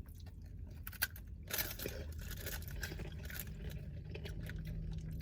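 Someone chewing a crunchy syrup-coated rice snack, with small crunches and crackles and a louder crackle about a second and a half in.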